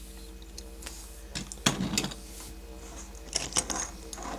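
Die-cast metal toy trucks being handled and set down on a hard surface: a few light clicks and knocks around one and a half to two seconds in, then again a little after three seconds, over a steady low hum.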